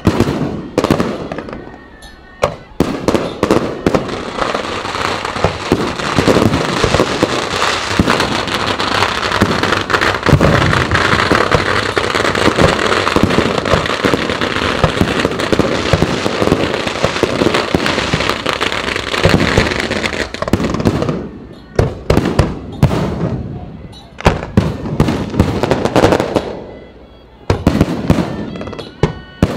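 Aerial fireworks display: a few single shell bursts, then a dense run of bangs and crackling from about three seconds in to about twenty seconds. After that come separate loud bangs with short quieter gaps.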